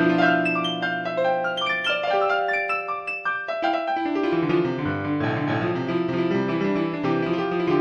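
Slow piano music: sustained chords with melody notes, the harmony changing about every second or two.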